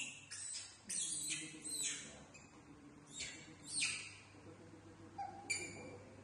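Baby macaques giving short, high-pitched squeaks, about half a dozen spaced through the few seconds, each falling slightly in pitch.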